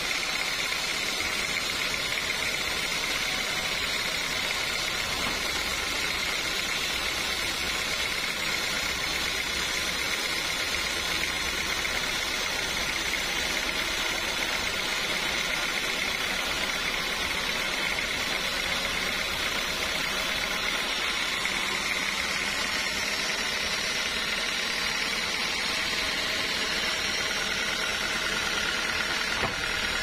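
Sawmill machinery running steadily while a large mahogany log is sawn into slabs: a constant mechanical drone with a high whine and no breaks.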